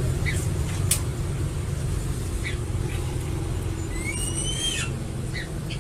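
Crested eagle calling: a few short high chirps, and about four seconds in a thin whistled call that rises and then drops at its end, over a steady low rumble.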